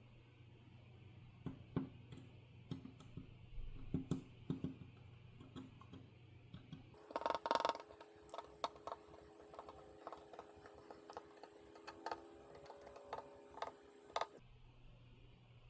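Scattered light clicks and taps of small objects being handled, with a short louder clatter about seven seconds in.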